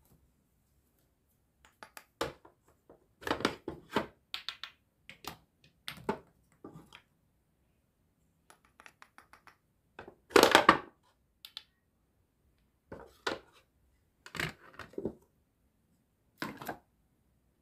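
Small plastic and wooden toy food pieces clicking and clattering in the hands, with one louder crackly rip about ten seconds in as a toy strawberry is cut in two with a wooden toy knife.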